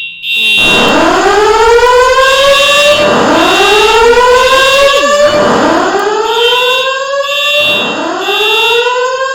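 Building fire alarm sounding a loud whoop evacuation tone: four rising sweeps, one about every two and a half seconds, with a high pulsing beep coming back in over the last few seconds.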